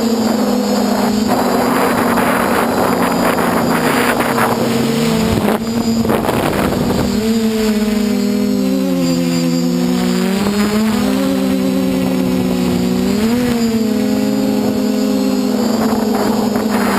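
DJI F450 quadcopter's four motors and 8-inch propellers whining in flight, several pitches sliding up and down apart from one another as the motor speeds change, over a rush of wind noise.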